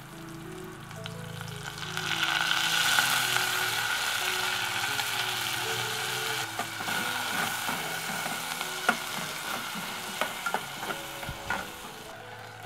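Onion, garlic and ginger frying in oil in a metal pot, with shrimp paste going in. The sizzle turns much louder about two seconds in, then eases slowly. Later a spatula stirs, scraping and tapping against the pot.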